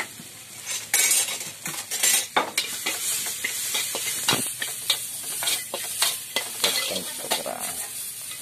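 Chicken pieces sizzling in hot oil in a black wok, with a long metal spatula scraping and clanking against the wok in quick, irregular strokes as they are stirred.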